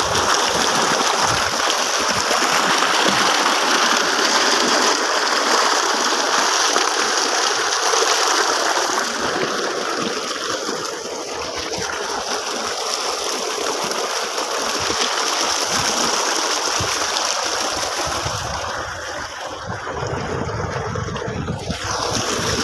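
Steady rush of water gushing from a tubewell's outlet pipe and flowing along the irrigation channel. A low rumble joins near the end as the water sound thins.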